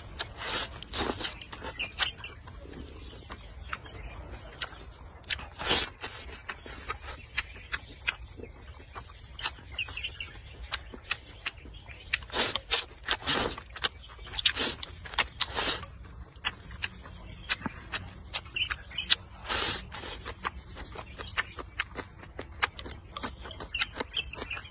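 A person slurping and chewing potato noodles from a bowl of soup: many short wet slurps and mouth smacks, louder in a run of slurps a little past the middle.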